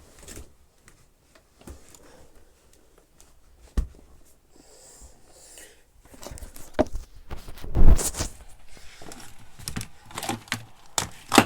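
Handling noises of vacuum cleaner attachments: scattered clicks and knocks, a sharp knock about four seconds in, then a busier stretch of clatter and rustling in the second half with a louder knock near the middle of it. The vacuum's motor is not running.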